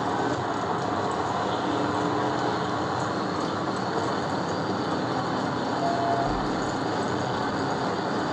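Steady road and wind noise inside a Dodge police cruiser running at around 100 mph and gaining speed.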